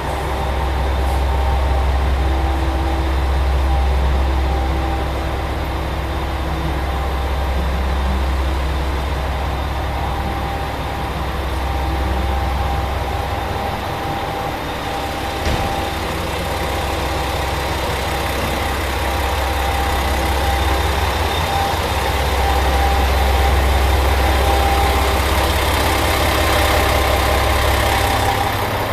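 Chizu Express HOT7000 series diesel railcar idling while standing: a steady low engine rumble with a few steady whining tones above it, and a single sharp click about halfway through.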